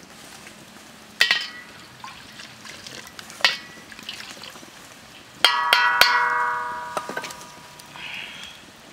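A metal cup knocking against a steel wok: a ringing clink about a second in, another a little past three seconds, and a quick cluster of knocks just past halfway that rings on for over a second. Cooking oil pours into the wok between the knocks.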